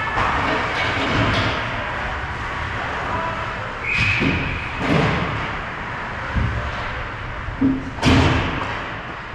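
Ice hockey play in a rink: several sharp thuds of puck, sticks or players against the boards, about four and five seconds in and loudest near the end, over the steady rumble of the rink.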